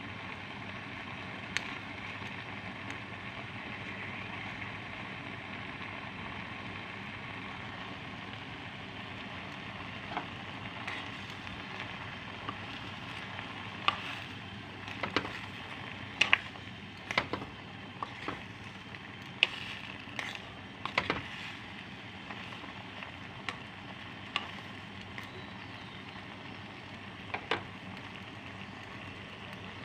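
Food sizzling steadily in a frying pan, with a run of sharp clicks and knocks from a utensil against the pan in the second half.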